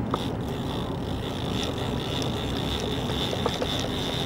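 A big-game lever-drag reel being wound in against a hooked tuna, with a steady high mechanical whine and a few scattered clicks. The boat's engine runs underneath as a low, continuous rumble.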